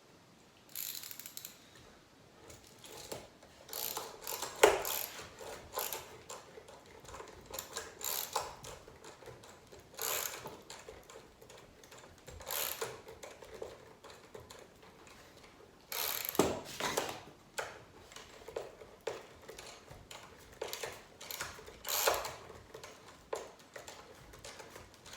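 Brass wood screws being driven in with a hand screwdriver: irregular bursts of clicking and rasping as the driver turns and the screws bite into the wood, with brief pauses between turns.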